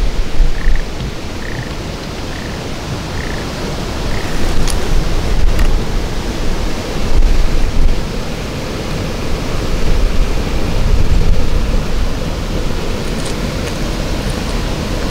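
Wind buffeting an outdoor microphone: a loud, gusty low rumble that swells and dips. A few faint short chirps sound in the first four seconds.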